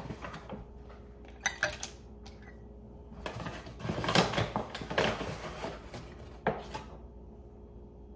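Flour being measured out: a paper flour bag rustling and a measuring cup scraping and knocking as flour is scooped and tipped into a mixing bowl, in a few short bursts with scattered sharp clicks.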